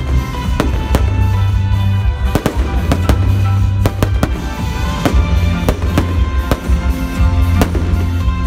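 Fireworks display: an irregular series of sharp firework bangs and crackles, about one to two a second, over loud music with a steady bass line.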